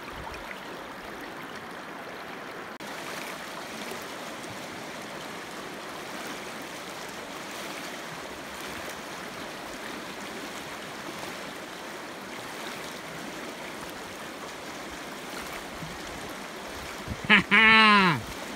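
Steady rush of a shallow river running over rocks. Near the end, a man lets out one loud whoop that rises and falls in pitch.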